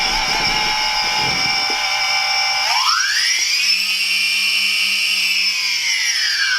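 DJI Phantom 3 Standard quadcopter's motors and propellers whining at a steady pitch, then rising steeply in pitch about three seconds in, holding high for a few seconds, and falling again near the end as the motors spin up and back down.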